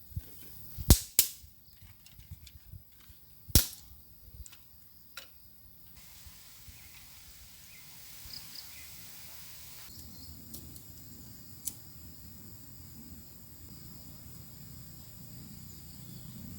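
Several sharp cracks, the loudest two close together about a second in and another near four seconds, with lighter clicks between. Then a steady low background with a faint low rumble in the second half.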